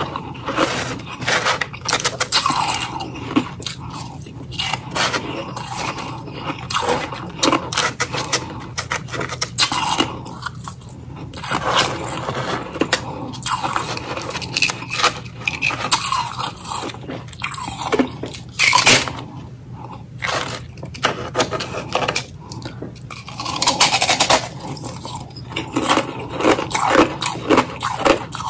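Close-up chewing and crunching of ice, freezer frost and hollow ring ice, in a dense run of irregular sharp crunches with a few louder ones about two-thirds of the way through. Fingers scrape and pick up crushed frost from the tray, over a low steady hum.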